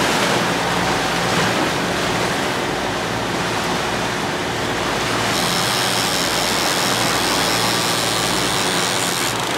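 Rushing wake water and wind around a catamaran's stern under way, over the steady low hum of its engines. About five seconds in, a fast high ratcheting buzz from a big-game fishing reel's clicker starts as line pays out, stopping near the end.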